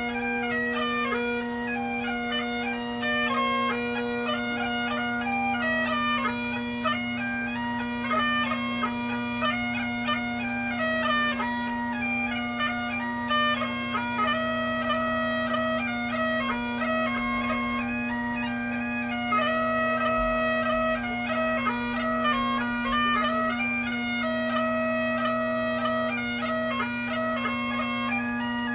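Highland bagpipe playing a continuous tune of held and ornamented melody notes over its steady bass and tenor drones.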